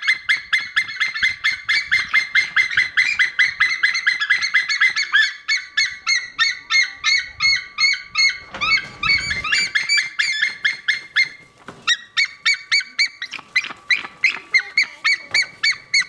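White-tailed eagle calling: a long series of short high notes, about three or four a second, with a brief pause about two-thirds of the way through before the calls resume.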